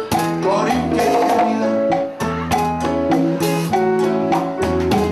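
Live Latin band playing an instrumental passage: an acoustic guitar picks the melody over a steady low bass line, with congas and a drum kit keeping the beat.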